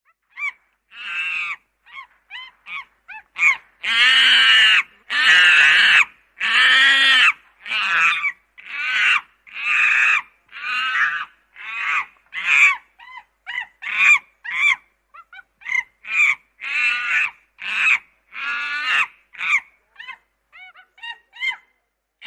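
Chimpanzee screaming and calling: short calls build to long, loud screams about four seconds in, then repeated shorter calls that grow fewer and fainter toward the end.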